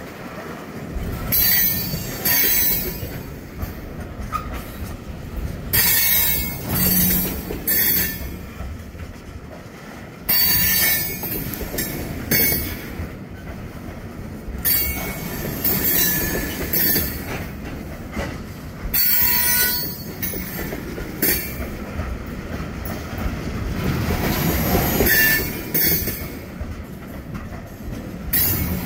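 Freight train tank cars rolling slowly past over a grade crossing, their steel wheels squealing against the rails in repeated bursts every second or two over a low rolling rumble.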